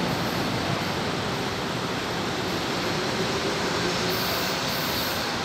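São Paulo Metro train running along the tracks and pulling away, a steady rumble of wheels on rail.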